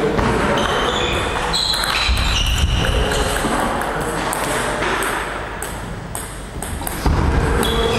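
Table tennis ball clicking sharply off bats, table and floor, a run of quick light hits and bounces. There is a low thud about two seconds in, and a louder one near the end.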